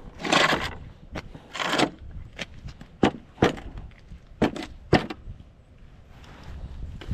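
Wooden pallets being slid and knocked together on concrete: two short scraping drags, then a run of sharp wooden knocks and clatters.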